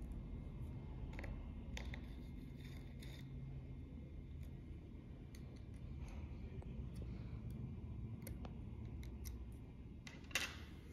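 A hex key turns the template fixing screws on a metal bassoon tip profiling machine: faint scattered metal clicks and small scrapes. One sharper, louder click comes near the end.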